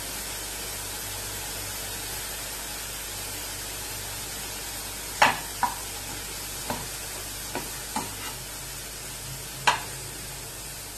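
Chopped vegetables sizzling steadily in a nonstick pan as they sauté with salt to soften. About five seconds in, a spatula starts stirring them, with several sharp knocks against the pan; the loudest comes as the stirring begins and another near the end.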